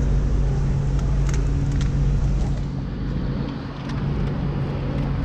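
Nissan GT-R50 by Italdesign's twin-turbo V6 idling steadily.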